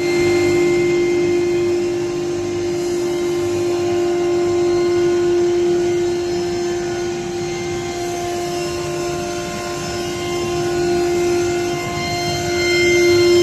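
CNC router spindle running at a steady high pitch while cutting, with a low rough noise under the tone; it swells somewhat louder near the end.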